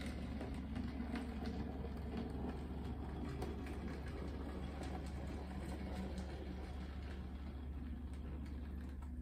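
Model train running along the layout's track: a steady low rumble of the locomotive and wheels on the rails, with scattered light clicks.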